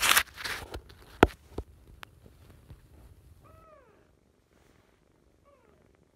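Low purring from a tabby kitten under loud rustling and a few clicks of handling close to the microphone. About three and a half seconds in a kitten gives one short mew that falls in pitch, and a fainter one follows near the end.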